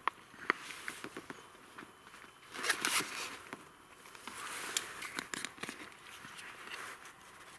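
Scattered knocks, clicks and rustling of hands handling camp cooking gear: a wooden cutting board set down on a log stump, then a small bottle and chopsticks picked up. A louder rustle comes a little before halfway.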